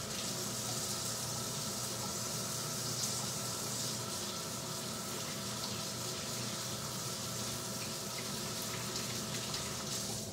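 Kitchen sink faucet running steadily as hands are washed under it. The water shuts off near the end.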